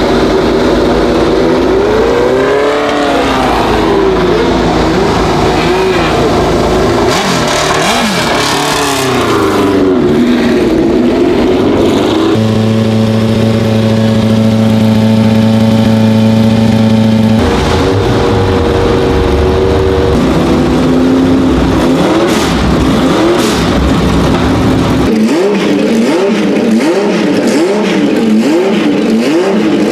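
Historic racing car engines revving, the pitch rising and falling with repeated throttle blips, then held at steady revs for about five seconds in the middle before more blipping near the end.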